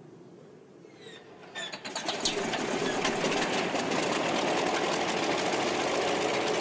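Antonov An-2 biplane's nine-cylinder radial engine starting up: it catches about two seconds in with a few irregular pops, then runs steadily with a rapid, dense firing clatter while smoke puffs from the exhaust.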